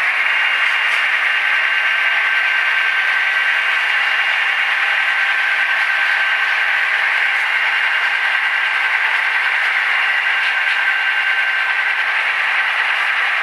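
SoundTraxx Tsunami sound decoders playing diesel locomotive sounds through model locomotives' small speakers: a steady, tinny din with no deep bass.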